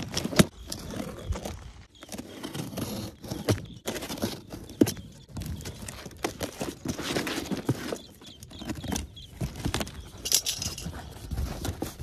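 Box cutter slicing packing tape on a cardboard box, with the cardboard flaps being handled and pulled open: irregular scraping, tearing and sharp taps.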